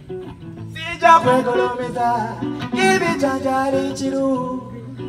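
Live acoustic guitar played fingerstyle, with a voice singing a melody over it.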